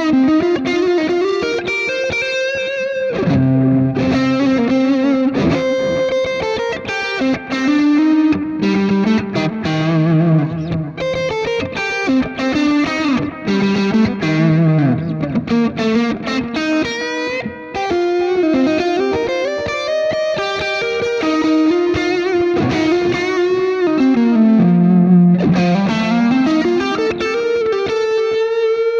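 Electric guitar, a Fernandes played through a Hotone Ampero One amp modeller, playing a melodic line of single notes and chords. Near the end one note slides down in pitch and back up again.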